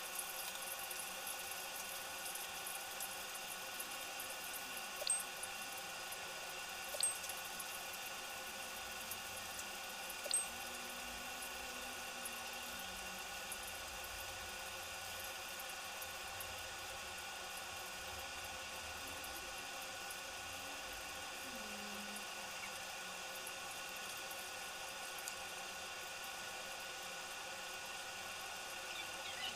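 Metal spoon clinking on a ceramic bowl three times, short sharp clicks a couple of seconds apart in the first third, over a steady background hiss and hum.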